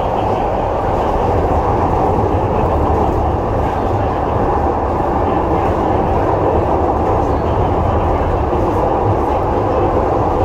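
Glasgow Subway train heard from inside the car as it runs through the tunnel: a steady, loud rumble of wheels on rails and running gear.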